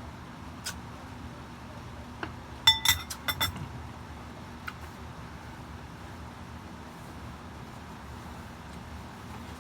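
Tableware clinking: a few light ticks, then a quick cluster of sharp ringing clinks about three seconds in, over a steady low hum.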